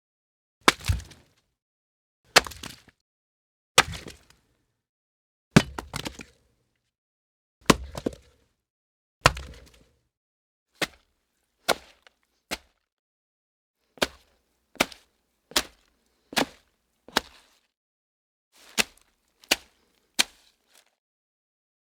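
A series of separate sharp impact sound effects, whacks and cracks, about seventeen in all with silence between. The first several have short fading tails and come every one and a half to two seconds; from about halfway they are shorter and come faster, under a second apart.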